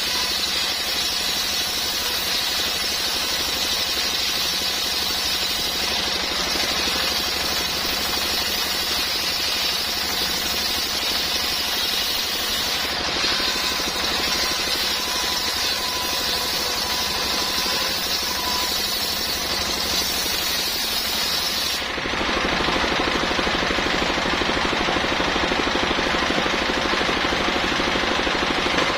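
Circular sawmill blade sawing a coconut-palm trunk into beams: a loud, dense, steady noise that changes abruptly near the end, losing its hiss and growing fuller.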